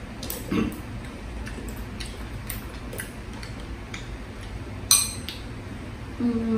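Chopsticks clicking and tapping against a small ceramic bowl while eating, a few scattered ticks with one sharper, ringing clink about five seconds in.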